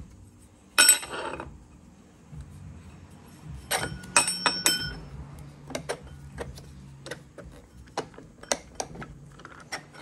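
Metal parts of an old GM starter motor being handled and fitted together on the bench: a short scrape about a second in, then a cluster of clinks and knocks, some ringing briefly, around four seconds in, followed by scattered lighter taps.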